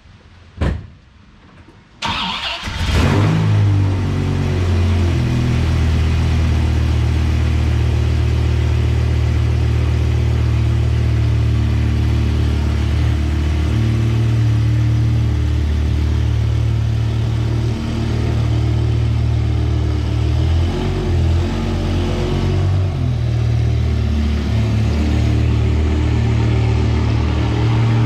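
A thump, then a Dodge Viper's V10 engine starts about two seconds in, flares briefly as it catches, and settles into a steady, loud idle that wavers a little near the end.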